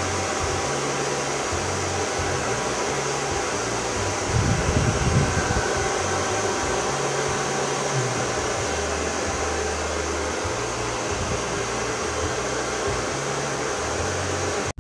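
Handheld hair dryer running steadily, blowing on long wet hair to dry it, with a low fluttering hum that shifts as the dryer moves.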